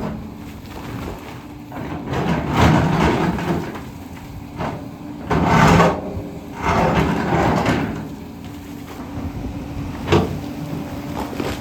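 Long-reach excavator engine running steadily while its bucket scrapes and grinds against rock in several long passes, with a sharp knock near the end.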